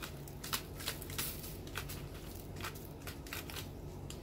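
Dry seasoning shaken from a spice shaker: a series of short, dry rattles, about one or two a second, over a faint low steady hum.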